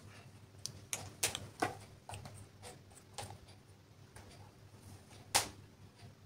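Small plastic clicks and taps as a plastic lipstick container is handled, with one sharper, louder click a little past five seconds in as its cap is pulled off. A faint low hum runs underneath.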